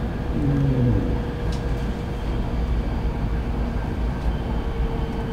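Steady low running rumble inside a Kyushu Shinkansen car moving at speed, with a faint steady hum.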